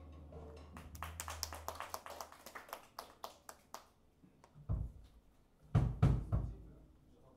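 After a rock band's song ends, a low amplifier hum dies away about two seconds in while scattered hand claps come from a small audience. A few louder low thumps follow near the end.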